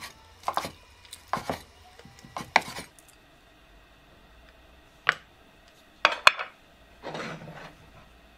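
Cleaver chopping through sundae (Korean blood sausage) onto a wooden cutting board, about six sharp knocks in the first three seconds. Later come a few clinks of dishes and a brief scrape.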